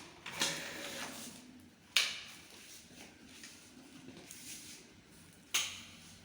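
Three sharp plastic clicks and knocks from handling the vacuum cleaner and its cord while it is switched off, the loudest about two seconds in.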